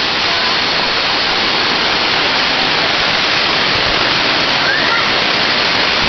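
Jungle waterfall cascading over boulders: a loud, steady rush of falling water.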